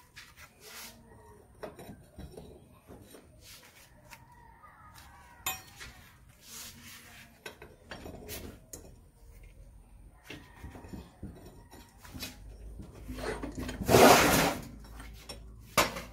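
Metal clinks and knocks from a flat steel bar being clamped in a bench vise and taken back out, with a louder burst of clatter lasting about a second near the end.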